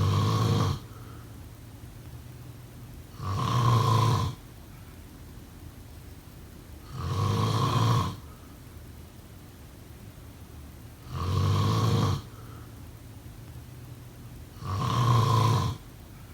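A person snoring in a slow, even rhythm: five loud snores about a second long each, one every three and a half to four seconds, with quiet between them.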